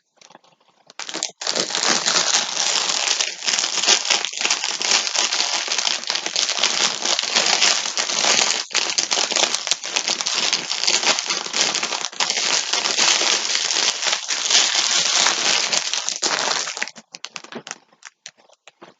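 Packaging crinkling and rustling as it is handled, starting about a second in and dying away near the end.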